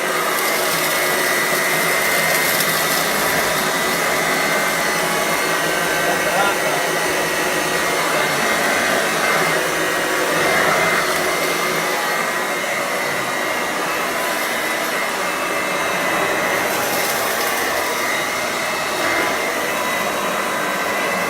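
1930s Hoover Model 450 upright vacuum cleaner running steadily over carpet: a constant motor whine over the rush of air.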